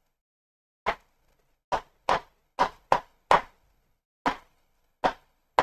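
Pen tip tapping on an interactive whiteboard screen while writing, about nine short, sharp taps at uneven intervals as each stroke touches down.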